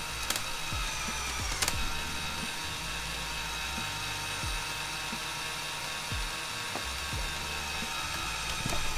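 Lego Technic 42113 Bell-Boeing V-22 Osprey's electric motor and gearbox whirring steadily as they tilt the engine nacelles upward, with a single sharp click about a second and a half in.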